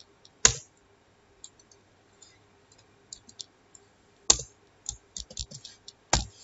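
Typing on a computer keyboard: irregular keystroke clicks, with a few louder strokes about half a second in, just past four seconds and near six seconds.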